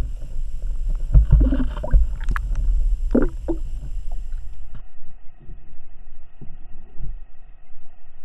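Underwater sound picked up through an action camera's waterproof housing as a lure is worked past it: a low, muffled rumble of water with scattered knocks and clicks, most of them in the first few seconds.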